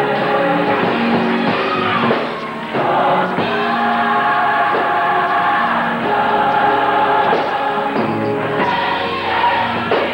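Gospel choir singing with accompaniment, the voices holding sustained notes.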